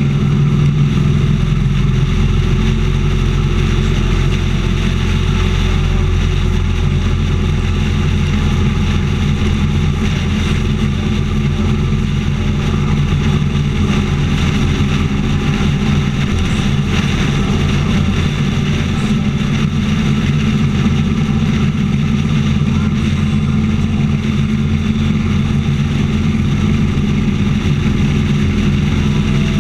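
Motorcycle engine running steadily at highway cruising speed, a constant low drone with no change in pitch.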